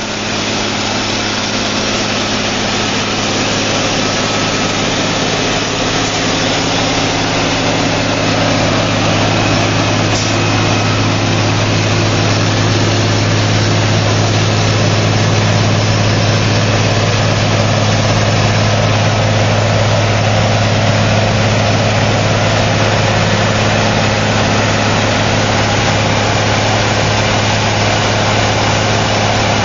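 Cummins N14 diesel engine of a 1998 Ingersoll-Rand DM45LP crawler blast hole drill running at a steady speed: an even low hum under a dense, noisy rush of machinery sound, getting a little louder over the first several seconds.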